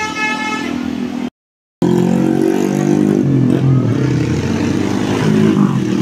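A bus's telolet musical air horn sounding its last high notes. After a brief cut, a bus's diesel engine runs loudly with a low drone that shifts in pitch.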